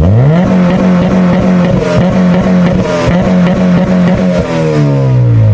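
Car engine revved up quickly and held at high revs with a rapid stutter, then the revs fall away near the end.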